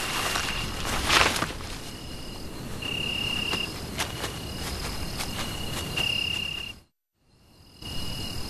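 A chorus of night insects trilling steadily on a high pitch, with two longer, louder held notes. A loud rustle of leaves comes about a second in, and a few sharp clicks follow. The sound cuts out briefly near the end, then the trilling resumes.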